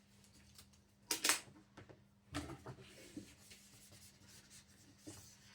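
Self-adhesive vinyl wrap film being handled and trimmed with a cutter on a drawer front: light scratching and rubbing on the film, with a short loud rustle about a second in and a few more a little past two seconds.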